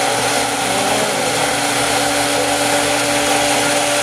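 Magic Bullet blender motor running steadily at full speed, its cup held pressed down on the base, blending a smoothie with a steady hum under the whir.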